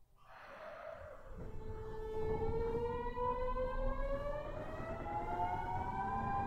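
Kyoto Municipal Subway 50 series train pulling away: a short hiss, then the VVVF inverter's whine, several tones rising steadily together in pitch as the traction motors accelerate the train.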